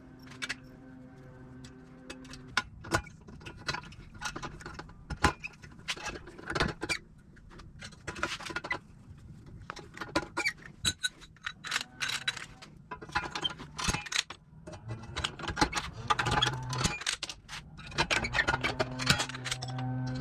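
Irregular metallic clicks, taps and clanks, several a second, of metal parts and tools being handled and worked. A steady low hum sounds under them at the start and again near the end.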